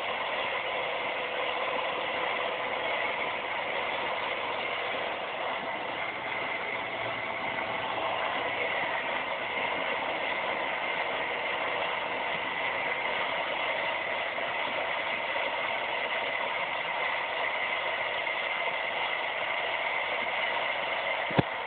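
Small propeller airplane's engine and propeller running steadily, heard from inside the cockpit. A single sharp click comes near the end.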